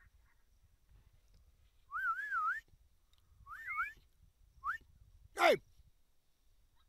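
Warbling whistles in three short rising-and-falling phrases, then a brief sharp squeal that falls steeply in pitch, sounded as a call toward a coyote in the field.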